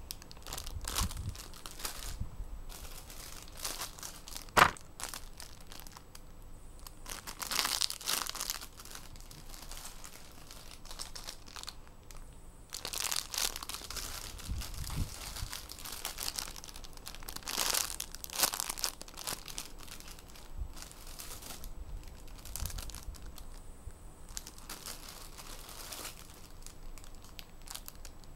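Clear plastic bags crinkling in irregular bursts as bagged squishy toys are picked up, turned over and rummaged through in a pile. A single sharp click about four and a half seconds in is the loudest sound.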